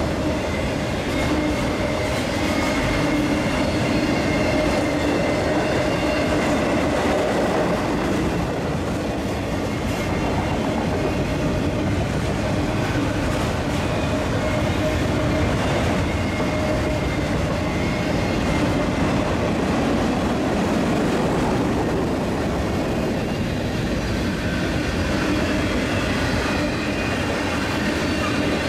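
Union Pacific manifest freight train's autorack and tank cars rolling past at speed, a steady, continuous rumble of steel wheels on rail with faint steady tones running through it.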